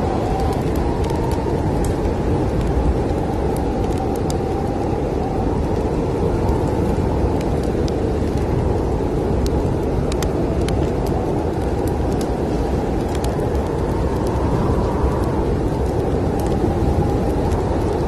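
Snowstorm wind blowing steadily with a low rumble and a faint wavering whistle, mixed with scattered small crackles and pops from a wood fire.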